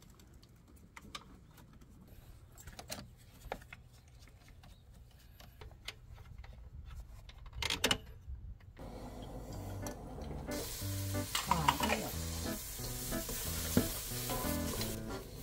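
Faint clicks and knocks of tools and a terminal clamp being handled on a car battery, with one louder knock near the eight-second mark. Then soft background music with a slow, plodding bass comes in, and a little later food sizzles and fries in a stainless pot as it is stirred with a wooden spoon.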